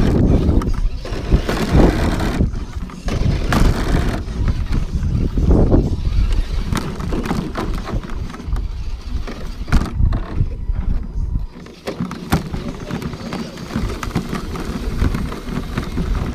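RC rock crawlers working over rock: scattered clicks and knocks over a loud low rumble, which drops off sharply about eleven and a half seconds in.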